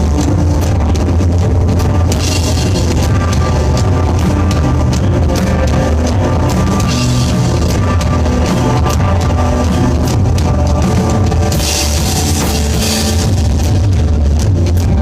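Rock band playing live: drum kit, heavy bass and electric guitar, with cymbal crashes about two, seven and twelve seconds in.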